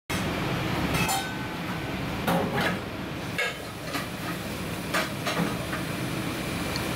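Steady kitchen background noise with scattered light clinks and knocks of dishes or utensils, a few of them a second or so apart.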